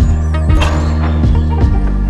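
Background music: sustained synth chords over a bass line with a steady beat, about two strokes a second, and a few high gliding sweeps near the start.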